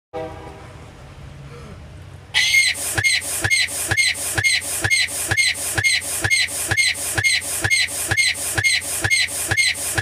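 A shrill, fast, regular series of mock-sneeze calls from a teenage boy, about three a second, starting about two seconds in. This is the 'majestic' sneeze noise of the joke.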